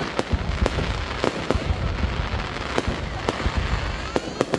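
Aerial fireworks bursting: irregular sharp bangs and cracks, a dozen or so, over a continuous low rumble of distant explosions.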